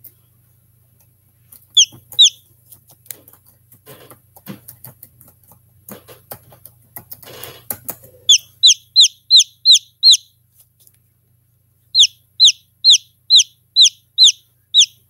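Chicken chick peeping from inside its pipped egg: short high peeps that slide downward. Two come about two seconds in, then quick runs of about four a second from about eight seconds in and again near the end. Before the runs there are scattered faint clicks over a low steady hum.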